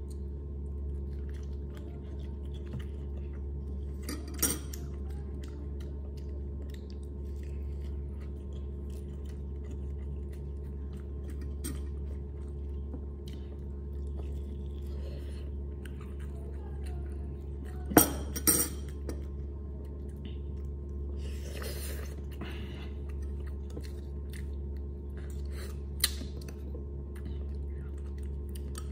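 Close-up chewing and mouth sounds of a person eating with their fingers, with many small clicks and a few sharp clinks of plates and bowls, the loudest two about eighteen seconds in, over a steady low hum.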